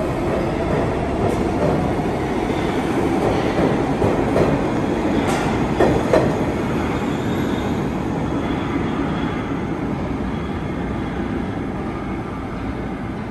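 R62 subway train departing the station: the steady running noise of the cars and wheels on the rails, with a few sharp clicks from the wheels around the middle. It slowly gets quieter in the second half as the train pulls away.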